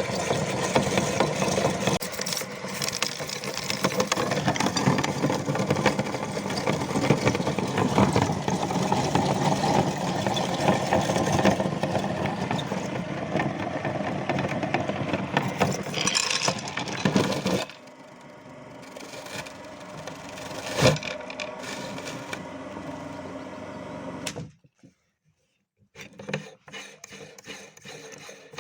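Electric meat grinder running and grinding candy, a dense mechanical rattle. About two-thirds through it drops much quieter, with one sharp knock, then cuts off, and a few light clinks follow near the end.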